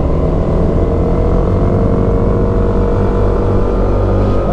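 Motorcycle engine running steadily under throttle on a long uphill climb, mixed with wind rush on the camera microphone.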